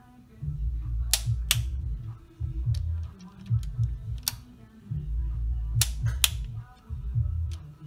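Sharp metallic clicks from a click-type torque wrench breaking over at its set torque as bolts on a BMW N52 engine's valvetrain caps are tightened: five loud clicks, two of them in close pairs, with fainter ticks between. Background music with a heavy low beat runs underneath.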